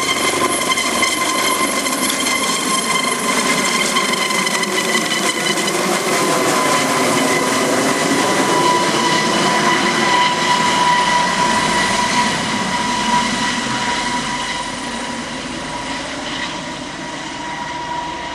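Aérospatiale AS 365 Dauphin helicopter flying low overhead just after take-off: a steady high whine with several overtones over the rush of the rotor, slowly fading in the second half as it moves away.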